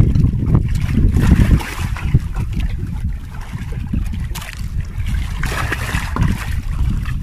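Wind buffeting the microphone over a boat at sea, with water sloshing and splashing; near the end a giant grouper splashes at the surface as it is hauled up alongside the hull on a handline.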